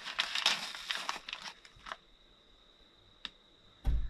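Microwave popcorn bag crinkling and rustling as it is handled, for about the first second and a half. Then quiet with a faint steady high whine, a single click, and a heavy thump near the end.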